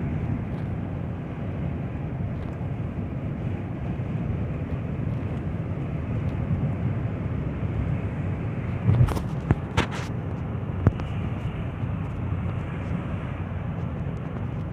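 Car being driven, with a steady rumble of engine and road noise. A few short sharp knocks come a little past the middle.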